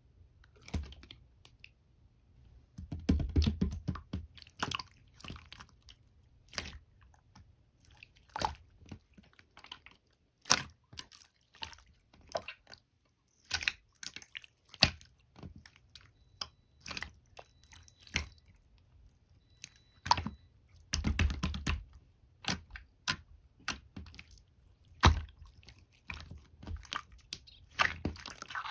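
Close-up chewing of peach konjac jelly: irregular wet, squishy mouth sounds and clicks, with louder stretches of chewing about three seconds in and again around twenty-one seconds.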